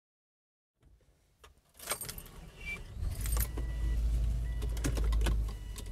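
Car keys jangle with a few clicks, then about three seconds in the car's engine starts and runs with a steady low rumble.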